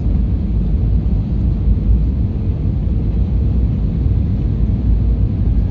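Cabin noise inside an Airbus A320-232 on approach: a steady low rumble of its IAE V2500 engines and the airflow past the fuselage, with a faint steady hum above it.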